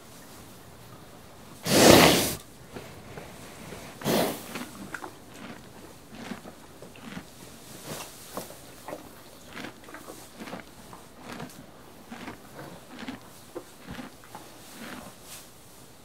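Horse chewing hay: an irregular run of small crisp crunches. A loud noisy burst lasting under a second comes about two seconds in, and a shorter one just after four seconds.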